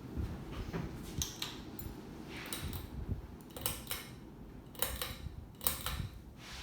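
Patriot Lighting Manchester II 52-inch ceiling fan running on high speed, a steady low rush of air and motor, broken by about half a dozen short clicks and rustles.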